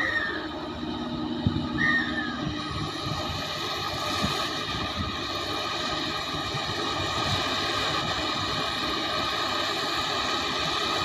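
Heavy diesel engines of a Komatsu PC300 hydraulic excavator and a loaded dump truck running steadily, growing slightly louder. A few knocks and two short squeaks come in the first couple of seconds.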